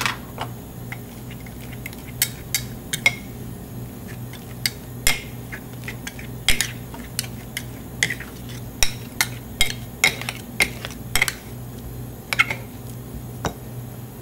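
Metal spatulas clinking and scraping against a chilled stone plate as ice cream is worked and mixed. The clinks come at an irregular pace, over a dozen of them, some ringing briefly.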